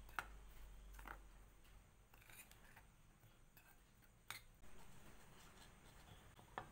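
Metal spoon stirring dry flour in a glass bowl: faint scraping with a few sharp clicks where the spoon knocks against the glass.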